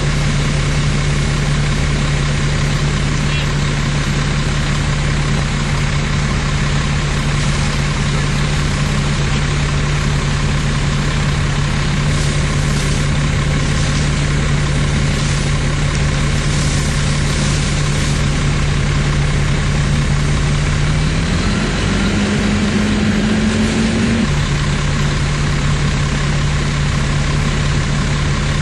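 Fire engine's engine running at a steady drone; its speed rises about 21 seconds in and drops back near 24 seconds. A steady rushing hiss of water from the hoses runs beneath it.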